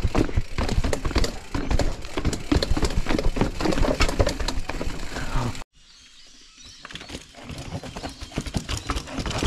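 Mountain bike clattering over a rough trail descent: a dense, irregular run of knocks and rattles. It cuts off abruptly a little over halfway through, then picks up again quieter.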